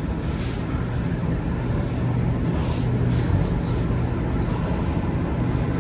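Shenzhen Metro Line 1 train running between stations, heard inside the carriage: a steady rumble with a constant low hum and occasional brief hissing swells.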